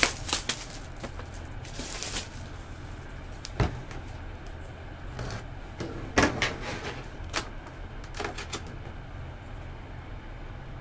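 Cardboard trading-card boxes being handled on a table: scattered knocks and rubs as a box is picked up and opened, over a steady low hum.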